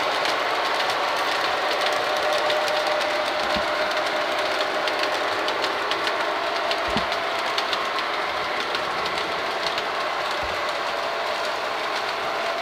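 O gauge three-rail model trains running: a steady rolling rumble of metal wheels on the track with a fast stream of small clicks, under a steady motor tone. Three soft low thumps come through, about a third of the way in, near the middle and again later.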